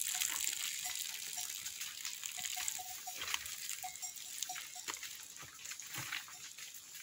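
Faint goat bells clinking irregularly, in small clusters of short rings at one pitch. Scattered clicks and knocks and a steady high hiss run underneath.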